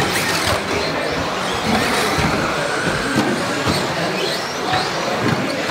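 1/10 scale electric 4WD off-road RC buggies racing on an indoor carpet track: high-pitched motor whines rise and fall as the cars accelerate and brake, over a steady din of tyres on carpet, with a few sharp knocks from landings or hits against the track edging.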